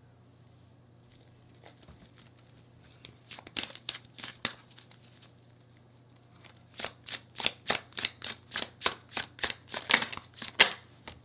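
Tarot deck being shuffled by hand: a few scattered card clicks about halfway in, then a run of crisp card snaps about twice a second.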